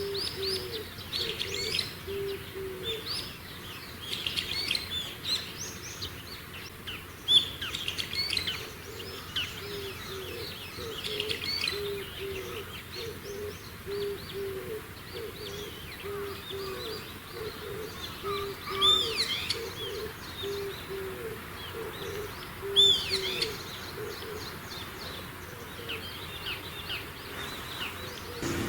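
Wild birds calling: many short, high chirps and quick sweeping notes scattered throughout, over a steady run of low notes repeated about twice a second.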